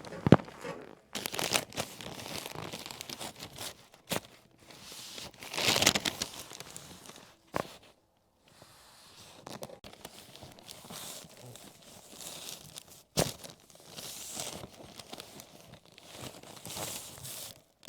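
Chiropractic adjustment: a rustling and crinkling of the treatment table's paper cover as the patient is moved and positioned. Over it come several sharp cracks of joints popping, the loudest right at the start and others about four, seven and a half and thirteen seconds in.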